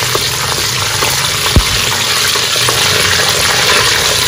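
Cumin and fenugreek seeds sizzling steadily in hot mustard oil, stirred with a wooden spoon. A single sharp knock about one and a half seconds in.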